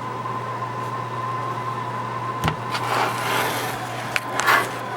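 A few sharp clicks and short scraping sounds of small MacBook Pro parts being handled during a repair, over a steady low hum and a faint steady whine.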